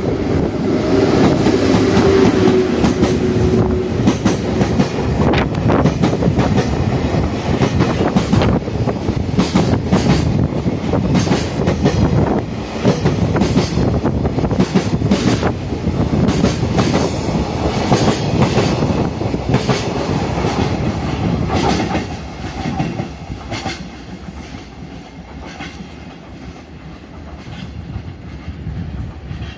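EF81 electric locomotive hauling a container freight train, passing through a station without stopping. A steady tone sounds under the noise for the first few seconds, then the wagons' wheels click rhythmically over the rail joints. The noise falls away about 22 seconds in as the train recedes.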